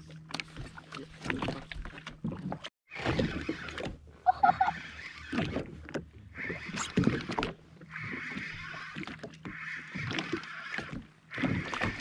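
Knocks, clicks and clatter of gear being handled on a jet ski afloat, with repeated short bursts of water splashing and a faint steady low hum underneath. The sound cuts out completely for a moment about three seconds in.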